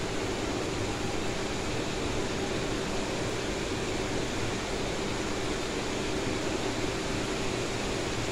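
Steady kitchen background noise: an even hiss with a faint steady hum underneath, while a wok cooks on a lit gas burner.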